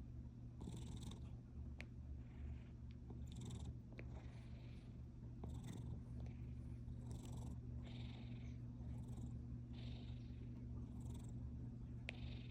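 Domestic cat purring: a steady low rumble with an airy breath sound about once every second or so.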